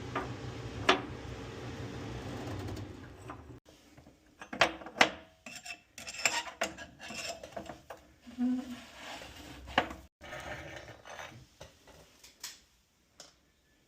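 Metal tools and parts clinking and scraping as they are handled in irregular knocks and clanks, after a steady low hum in the first few seconds.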